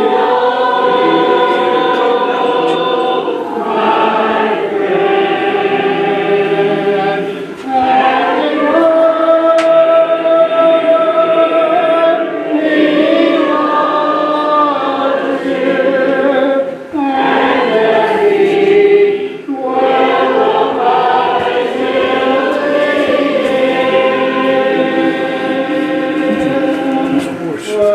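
A congregation of mixed voices singing a hymn a cappella, the invitation song at the close of a sermon, in long held phrases with short breaks between lines.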